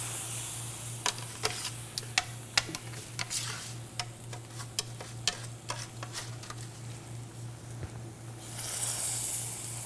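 Boiling water bubbling as dry roasted angel-hair pasta is pushed into it with metal tongs, with scattered sharp clicks of the tongs against the pan and the stiff strands. The hiss of the boil grows louder near the end.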